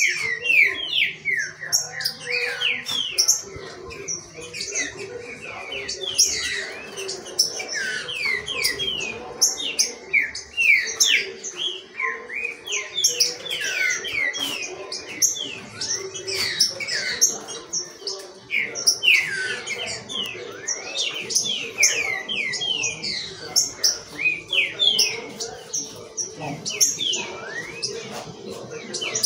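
Caged green-winged saltators (trinca-ferro) singing, with many quick downward-sliding chirps and whistles overlapping without a break.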